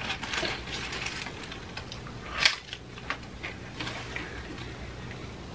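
Paper taco wrapper crinkling, then a loud crunch about two and a half seconds in as a hard-shell taco is bitten, followed by scattered crunches of chewing.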